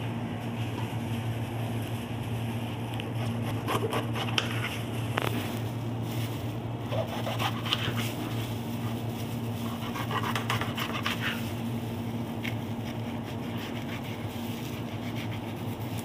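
A steady low mechanical hum, with scattered knocks and scrapes of a knife and hands on a plastic cutting board as green bell peppers are cored and cut.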